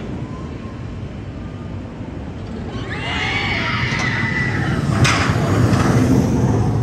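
Valravn dive coaster train plunging down its drop: riders screaming from about three seconds in, over a rumble of the train on the track that grows louder as it nears, with a sharp rush about five seconds in.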